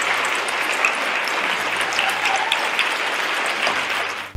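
A large audience applauding: dense, steady clapping that stops near the end.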